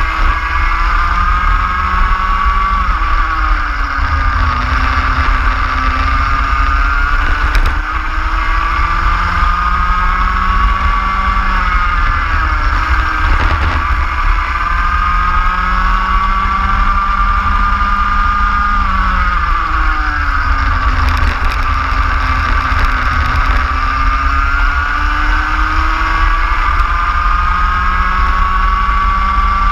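Racing kart engine heard from on board, lapping at speed: its note climbs steadily along each straight and drops sharply under braking for the corners, three times, over a heavy low rumble.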